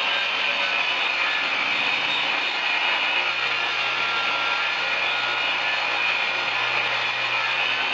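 Electric power tool running steadily on pine wood, a constant even noise with a low hum underneath.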